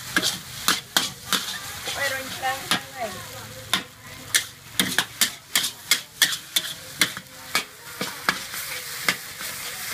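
Metal ladles scraping and clanking against a steel wok as noodles are stir-fried, with steady sizzling beneath. The sharp clanks come irregularly, about two a second.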